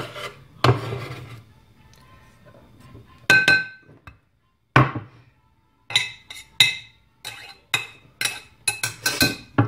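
Kitchen knife scraping chopped garlic across a wooden chopping board, then a run of sharp, briefly ringing clinks as the knife blade is tapped against the rim of a ceramic dish to knock the garlic off, about ten in the last four seconds.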